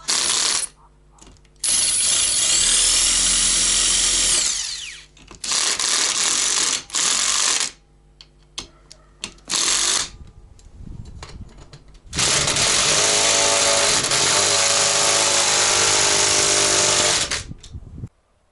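Power drill running in a series of bursts, with a rising whine as it spins up in one of the early runs and a longer run of about five seconds in the second half; it stops just before the end.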